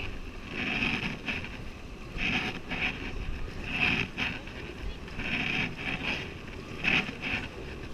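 Raft paddles digging into river water, a splashing stroke about every second and a half over the steady rush of the river.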